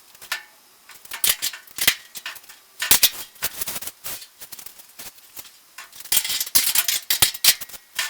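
Irregular metal clatter: sharp clicks, knocks and rattles of hand tools and sheet-metal panels being handled while a door and fender are hung on an old Chevy C10 pickup cab. The clatter comes in clusters, with quieter gaps around one second and five seconds in.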